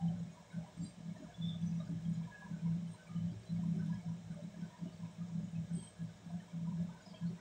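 A low hum that swells and fades irregularly, with a few faint clicks.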